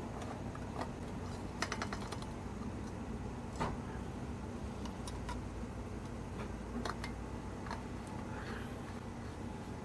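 Small plastic-and-metal clicks and knocks as a fuel pump is unscrewed from an MSR fuel bottle, set down, and the bottle's cap screwed back on. There is a quick run of clicks about a second and a half in and a sharper knock a couple of seconds later, over a steady low background hum.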